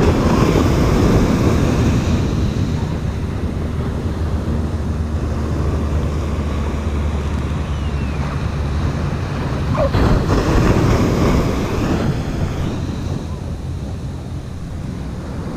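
Ocean surf washing onto the beach, with wind buffeting the microphone as a steady low rumble. The surf swells louder near the start and again about ten seconds in.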